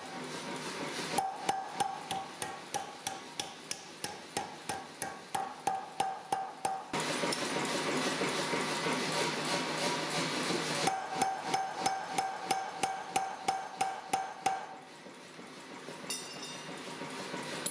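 Power hammer striking a glowing hot steel bar held in tongs, in two long runs of quick, even blows about three a second, each with a ringing metallic note. Between the runs the sound turns into a steadier, unbroken noise for a few seconds, and it goes quieter near the end.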